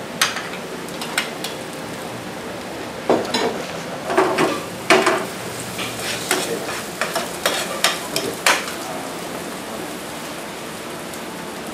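Diced tomatoes, onions and garlic sizzling steadily in a frying pan, with a metal spoon and ladle clinking and scraping against the pan as they are stirred, in a run of sharp strokes from about three to nine seconds in.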